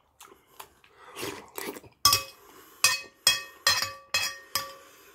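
Metal spoon clinking against a ceramic soup bowl: a few faint clicks and softer scraping first, then about six sharp, ringing clinks in quick succession through the second half.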